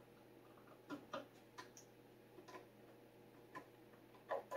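Faint, irregular clicks of a hand screwdriver turning the screws that hold the replacement tweeter in a Bowers & Wilkins CM1 speaker, about seven small ticks with the loudest pair near the end.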